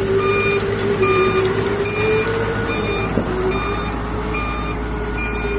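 Doosan Solar 130 excavator running, its travel alarm beeping about once a second over a steady engine drone that wavers slightly in pitch. There is a single sharp click about three seconds in.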